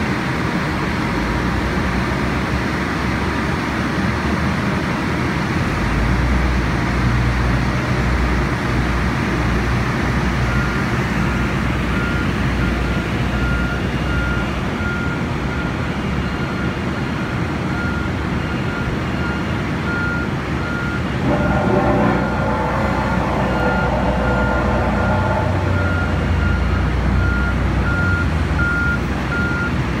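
Diesel engines of road-construction machinery and trucks running at a work site, with a steady low rumble. From about a third of the way in, a vehicle's reversing alarm beeps on and off at a steady pace, and a whining tone joins in for a few seconds about two-thirds through.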